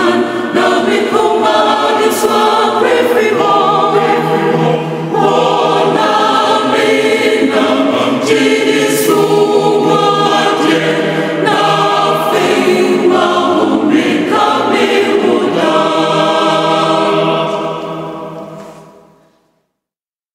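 A choir singing a gospel song, fading out near the end.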